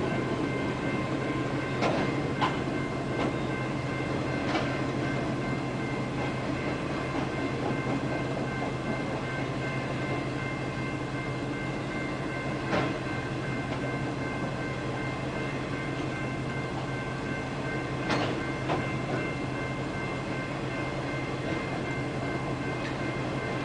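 Long freight train carrying military equipment rolling steadily past a crossing, with a continuous rumble and a few sharp clanks at irregular moments.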